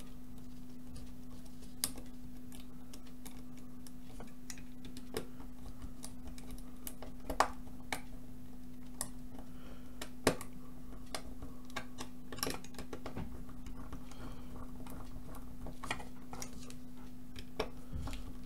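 Small screwdriver working the screw terminals of a DIY power supply kit board: scattered light clicks and ticks, a few sharper than the rest, over a steady low hum.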